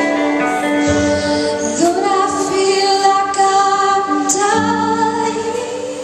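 Worship music with a woman singing long, held notes over instrumental accompaniment.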